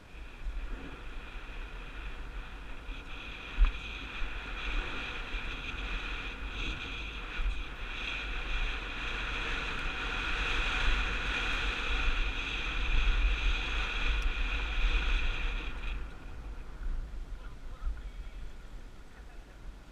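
A mountain bike running fast down a dry dirt trail, with wind rumbling on the helmet-mounted microphone. Tyre and drivetrain noise builds into a steady buzzing whir and stops about 16 seconds in as the bike slows. There is a sharp knock from a bump about three and a half seconds in.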